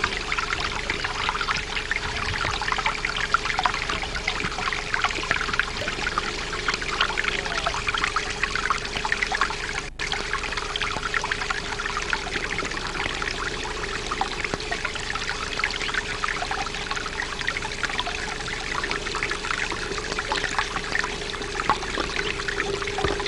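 A small stream of water trickling and splashing steadily over rocks, broken off for an instant about ten seconds in.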